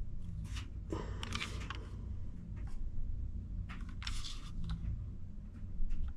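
Handling noises from a cordless impact driver and its plastic case being turned over: scattered light clicks and rustles, busiest about a second in and again near the fourth second, over a steady low hum.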